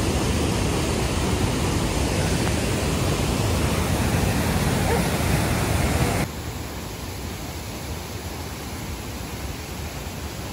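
Steady rush of a waterfall running heavy with water, an even noise across all pitches. About six seconds in it drops suddenly to a quieter level.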